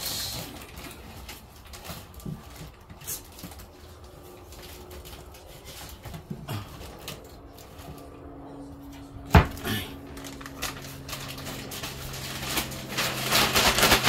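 Kitchen handling sounds: scattered light knocks, then one sharp knock about nine seconds in, after which a low steady hum starts. A burst of plastic-bag rustling comes near the end.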